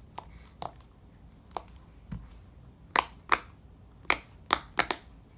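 Sharp plastic pops from a fidget toy being worked by hand, about ten irregular pops, the loudest a cluster about three to five seconds in.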